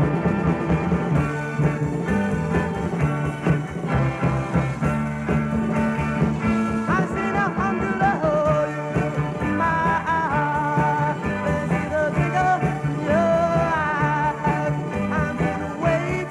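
A 1960s rock band playing a soul cover live: drums, bass guitar, keyboard and electric guitars, in an old live radio recording.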